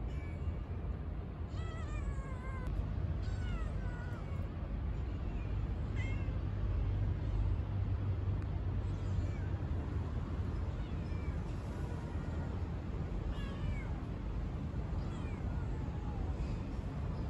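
A kitten meowing: short high, gliding meows repeated every second or two, over a steady low rumble.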